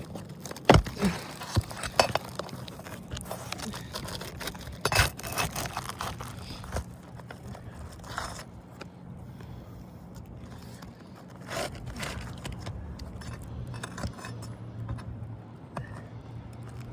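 Scattered scrapes, clicks and clinks of asphalt shingles being worked loose with a flat bar on a roof, over a steady low hum.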